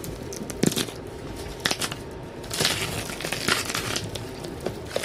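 Plastic protective film being peeled and rubbed off a ribbed hard-shell suitcase by hand. The noise comes in irregular short bursts, with a longer stretch about halfway through.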